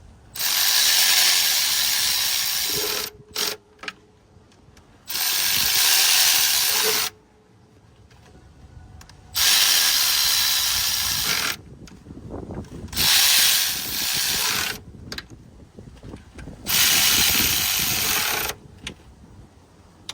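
Ratchet running the upper intake manifold bolts down in five bursts of about two seconds each, with short pauses between bolts.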